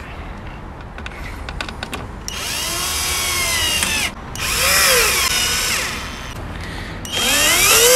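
Cordless drill driving a screw through a licence-plate frame into a car's front bumper, run in three bursts of a second or two each, its motor whine rising and falling in pitch with the trigger. The last burst starts near the end.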